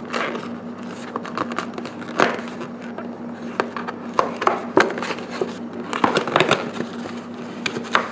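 Cardboard box's perforated tear strip being ripped open by hand: a run of small irregular tearing crackles and clicks.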